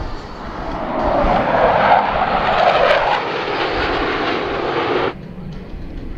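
Jet engine noise from a formation of USAF Thunderbirds F-16 Fighting Falcons passing overhead, swelling about a second in. It stops abruptly near the end at an edit, and quieter jet noise follows.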